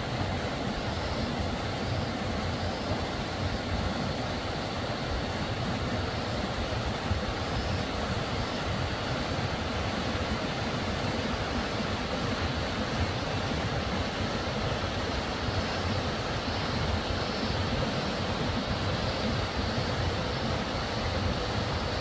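Steady rushing of flowing stream water, an even noise that does not change.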